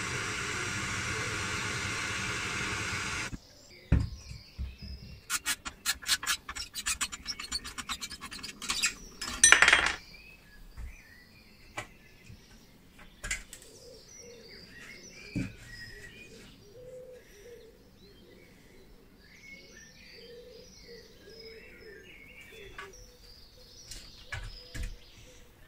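A hand-held gas blowtorch hisses steadily, then cuts off abruptly about three seconds in. A screwdriver then scrapes and clicks rapidly against the steel case and a riveted nameplate, with a loud crunch near ten seconds, followed by occasional clicks. Faint birds chirp in the background.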